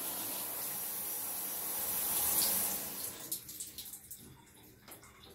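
Water spraying from a cheap handheld propeller showerhead run at full flow, a steady hiss that fades away about three seconds in, followed by a few faint ticks. The showerhead, made for low water pressure, could not handle the full flow.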